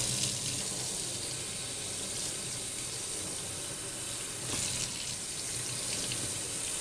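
Water running steadily from a scrub-sink faucet and splashing over a soapy hand and forearm into a stainless steel basin as the arm is rinsed.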